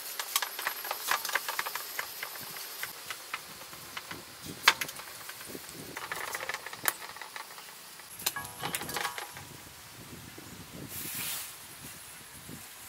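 Large knife scraping scales off a snake's skin in repeated strokes, with sharp clicks and taps of the blade, a few of them louder.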